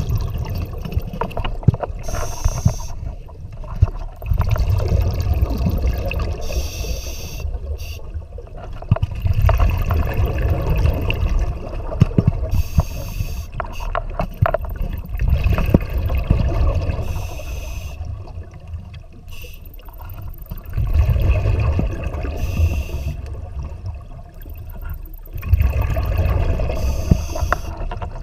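A scuba diver breathing through a regulator underwater: six hissing inhalations, one every four to five seconds, each followed by a longer, louder rumble of exhaled bubbles. Scattered clicks and knocks come through as well.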